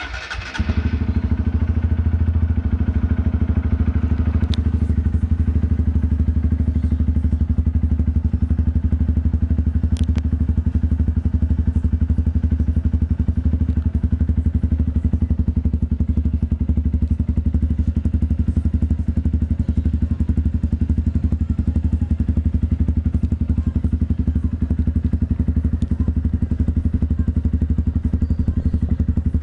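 Honda NXR 150 Bros single-cylinder four-stroke engine idling steadily through an aftermarket Roncar Coyote TRS off-road exhaust. It comes in abruptly at the start and then holds an even idle.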